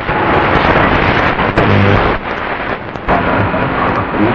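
Shortwave static and hiss from a Tecsun PL-680 receiver as it is tuned up the 49-metre band, the noise dipping briefly about two and three seconds in.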